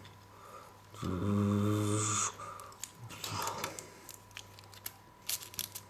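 A low, steady, voice-like hum about a second in, lasting about a second, then a short hiss. Light clicks and crinkles of candy wrappers and plastic toy bricks being handled follow near the end.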